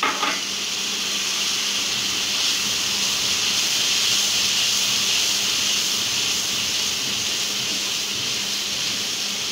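Fried spice masala in a hot karahi sizzling and hissing steadily as the water just poured in boils off, while it is stirred with a wooden spatula.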